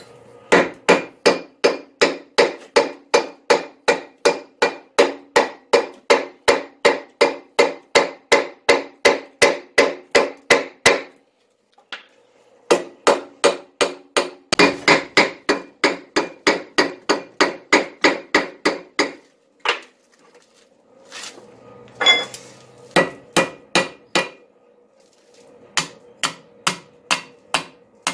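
Hammer blows forging Damascus steel on an anvil, each strike ringing. The blows come steadily at about three a second in two long runs with a short pause between, then slow to scattered strikes near the end.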